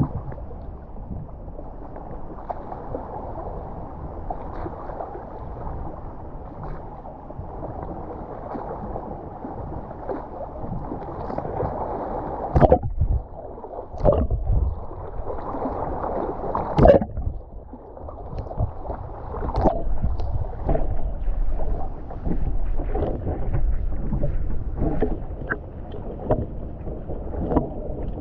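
Water sloshing and gurgling around a camera at and below the surface, heard muffled, with no high sound at all. From about halfway through, sharp knocks and small clicks come in, the loudest a few seconds apart and then many smaller ones.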